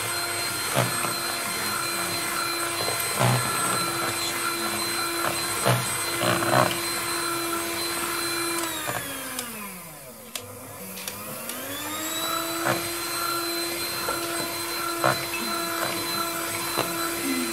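Electric hand mixer beating thick cocoa cake batter in a plastic bowl: a steady motor whine with occasional clicks of the beaters against the bowl. The motor slows down about nine seconds in and speeds back up a few seconds later, then winds down at the very end.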